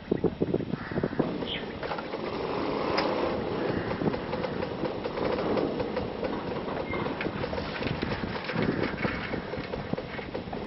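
Motorcycles riding across a railway bridge's narrow walkway: engine noise with a continual run of rattling knocks from the deck under the wheels.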